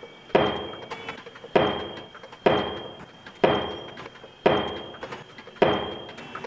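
A wooden chair smashed repeatedly against a closed door: six heavy bangs about a second apart, each ringing and dying away before the next.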